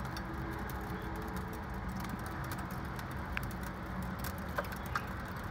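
Freezing rain and tiny ice pellets hitting an ice-crusted ledge, a dense, irregular patter of small sharp ticks over a steady low rumble.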